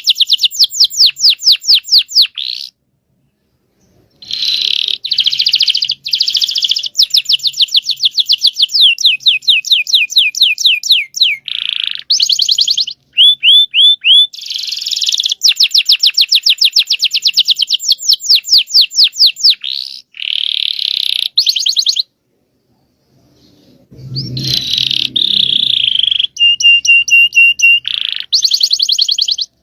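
Domestic canary singing loud, long rapid trills (rolls), each phrase a fast run of repeated notes, broken by two short pauses.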